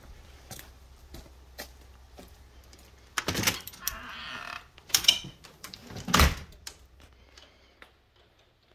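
Footsteps, then a screen door and an entry door being opened: a couple of loud knocks and latch clicks with a rasping creak between them, about halfway through.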